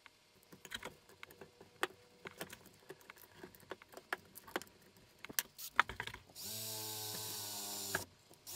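Light clicks and knocks as a battery pack's plastic housing and circuit board are handled, then a cordless drill runs, drilling through holes in the circuit board. The drill runs steadily for about a second and a half, stops briefly and starts again near the end.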